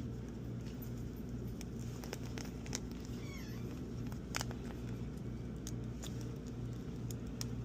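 Small clicks and taps of tools and screws on a phone under repair, over a steady low hum. A short wavering squeak comes just after three seconds in.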